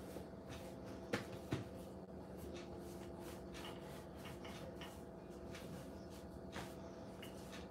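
Faint handling sounds of pizza dough being pressed and rolled out with a wooden rolling pin on a marble pastry board: soft rubbing and a few light knocks, over a steady low hum.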